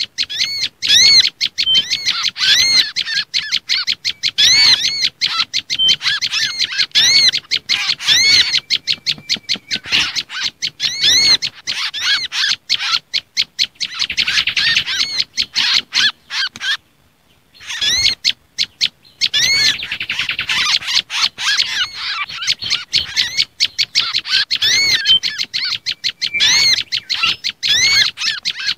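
Bird-lure (suara pikat) recording of small songbirds in an agitated 'ribut kejepit' distress chatter, with prenjak lumut combined with mangrove whistler (kancilan bakau) and olive-backed sunbird (sogok ontong) calls. Fast runs of high chip notes, each rising and falling, repeat several times a second, with one brief break a little past halfway.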